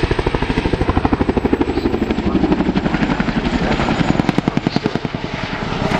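Boeing CH-47 Chinook tandem-rotor helicopter flying past, its rotor blades beating in a rapid, even rhythm. The sound dips a little about four and a half seconds in, then comes back up.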